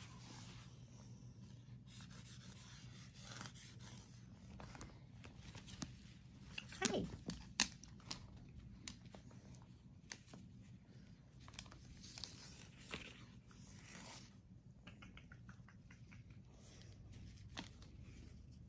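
Faint rustling and scraping of clothes and basket mesh as a blue-and-gold macaw clambers about a mesh laundry basket, with scattered light clicks. About seven seconds in comes a brief sound falling in pitch, the loudest moment.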